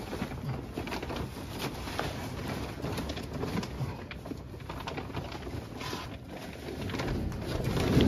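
Heavy plastic grain-bag sheeting rustling and crinkling in irregular bursts as it is pushed, gathered and tucked by hand onto a grain bagger's metal tunnel.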